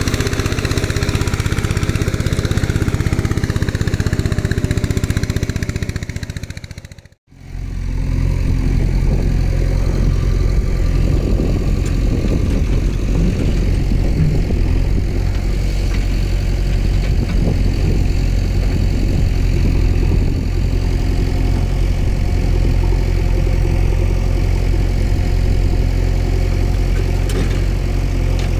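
Tractor engine running at a steady idle, a recorded engine sound laid over the toy footage. It fades out to silence about seven seconds in and comes straight back.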